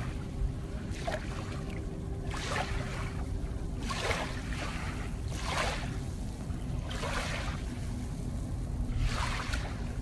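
Small wavelets lapping on a sandy shoreline, a soft wash every second or two, over a steady low rumble of wind on the microphone.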